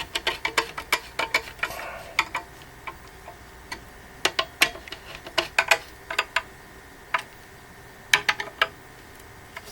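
Screws being turned by hand with a screwdriver into a printer stand's steel supports: irregular sharp clicks, some in quick clusters.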